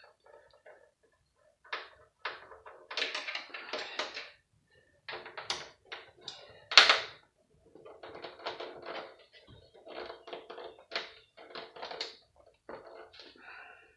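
Hand tools and PlayStation 3 parts being handled as the console is taken apart: an irregular run of clicks, taps and knocks, the loudest a sharp knock about seven seconds in.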